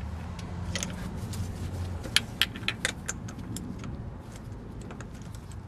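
Light metal tools clicking and rattling at irregular intervals as the last spark plug is threaded into its well by hand, over a low steady hum in the first two seconds.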